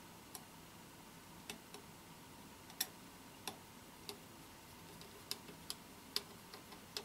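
Small screws being driven by hand into the plastic hop-unit casing of an airsoft sniper rifle: faint, irregular ticks and clicks of the driver and screws, about a dozen in all.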